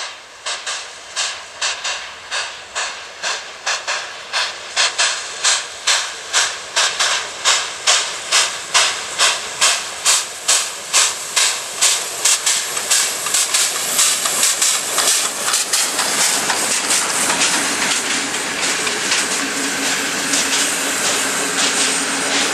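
PKP Pt47 2-8-2 steam locomotive hauling a passenger train past: sharp, regular exhaust chuffs, about two a second, growing louder as it comes near. After about fifteen seconds the chuffs give way to the steady rolling noise of the coaches' wheels on the rails.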